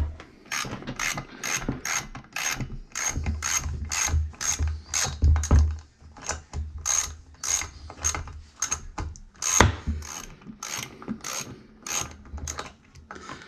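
A sharp knock, then a socket ratchet wrench worked back and forth, clicking about twice a second with a few short pauses, backing out a bolt on a Poulan chainsaw.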